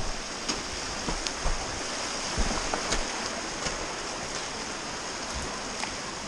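Steady rush of running creek water, with scattered sharp knocks and brushing from scrambling down a bank through scrub.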